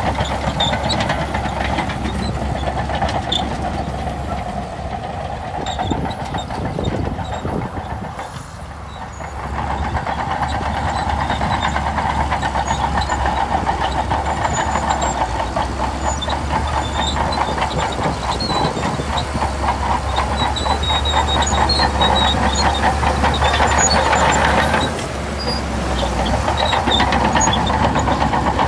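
Diesel engine of a Shantui DH17C2 bulldozer running under load, easing off briefly about eight seconds in and picking up again.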